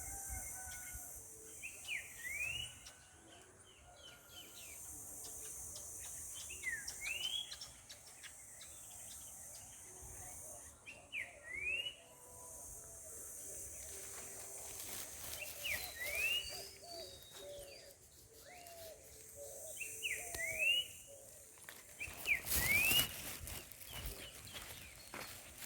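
Birds calling: one bird repeats a short sweeping two-part call about every four to five seconds, with fainter bird calls lower down. A high, steady buzz comes and goes in long spells, and a crackling rustle near the end is the loudest sound.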